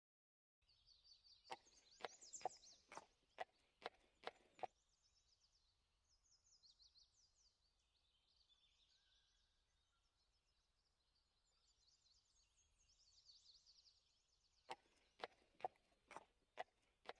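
Faint birdsong ambience of small birds chirping. Two runs of light, quick hoof-step clicks come over it, about seven in the first few seconds and another run of about seven near the end.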